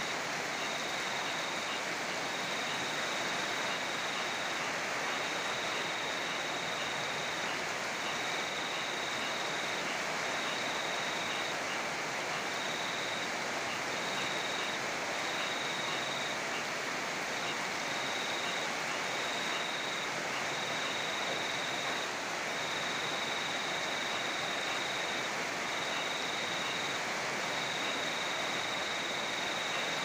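Steady rain falling, with a cricket trilling in long high-pitched runs broken by short pauses.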